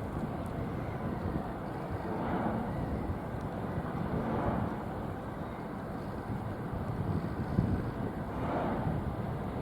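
Steady low rumble of distant vehicles, swelling a few times.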